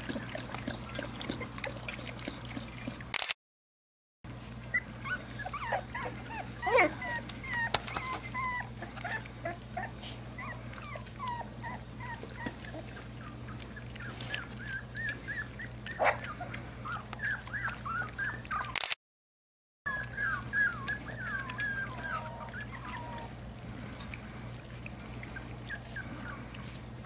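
Young boxer puppies whimpering and yipping: many short, high whines, some rising and some falling, coming in quick runs, over a steady low hum.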